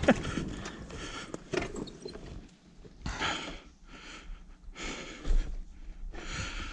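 Heavy breathing: a few breaths in and out, about a second and a half apart, with quiet gaps between.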